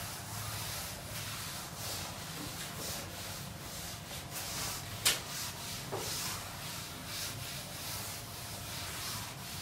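Blackboard duster wiping chalk off a blackboard in quick, repeated rubbing strokes. A single sharp knock comes about five seconds in.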